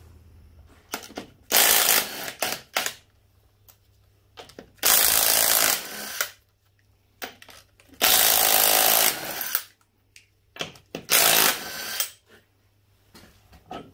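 Impact wrench hammering the wheel nuts loose on an ATV's front wheel, in four bursts of about a second each, one nut at a time.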